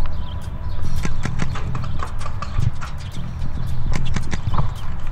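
Paintball fire: quick, irregular pops of paintball markers shooting and paintballs smacking against a concrete bunker, several a second, over a steady low rumble.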